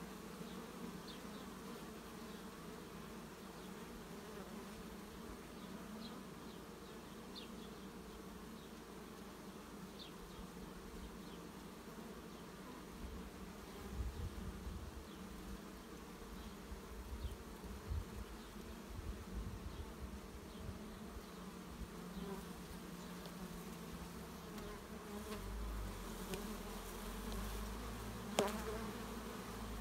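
Carpathian honeybees buzzing steadily in flight around the hive, with low rumbles at times and a single knock near the end.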